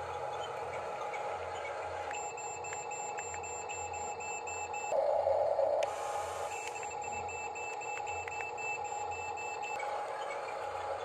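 Electronic sound effects from a toy RC construction vehicle: a steady electronic hum with fast high-pitched beeping in two stretches, broken by a short louder burst about halfway through.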